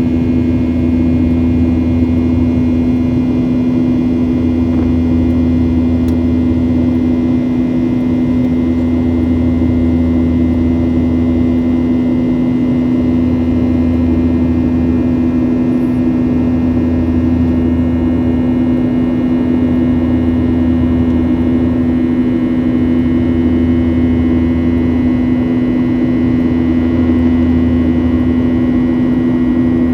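Steady drone of a Boeing 737's engines in flight, heard from inside the cabin, with a slow low throb that swells and fades every two to three seconds.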